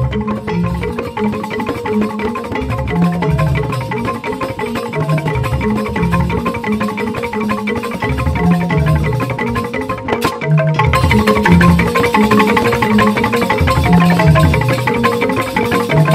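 Balinese joged bumbung gamelan playing: bamboo xylophones struck with mallets in a dense, fast stream of notes over a repeating low bass pattern.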